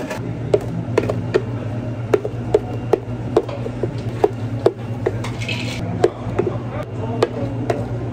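Frozen plain yogurt granita being poured and worked out of a plastic container into a tall glass, with a string of light clicks and knocks about two a second over a steady low hum. There is a short hissy scrape about five seconds in.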